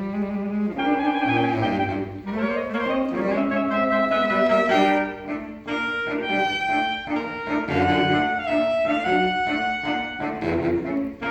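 Saxophone quartet playing, several lines at once: held and moving notes in the middle, over a low bass line that comes and goes.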